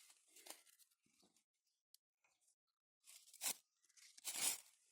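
Two faint, short crunching rustles near the end; otherwise nearly quiet.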